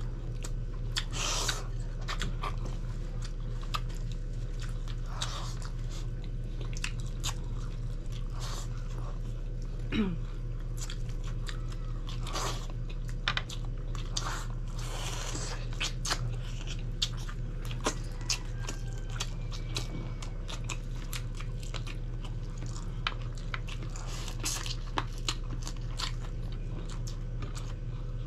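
Close-miked eating of grilled chicken inasal by hand: steady chewing and biting, with many short mouth clicks and smacks, over a steady low electrical hum.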